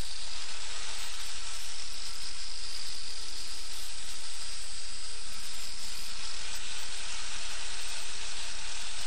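Angle grinder fitted with a sanding disc, running steadily while a small mild-steel bracket held in vice grips is ground and rounded against it. It makes an even, continuous grinding noise with a faint high whine.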